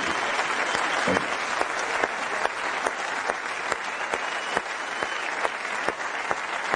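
Audience applauding steadily: a dense patter of many hands clapping, with individual sharp claps standing out throughout.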